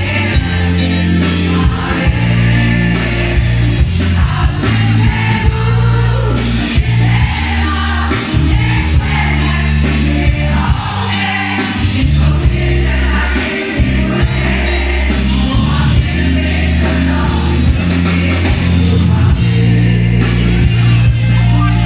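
Live pop band performing: a woman sings lead into a microphone with backing singers, over keyboard, bass and a drum kit.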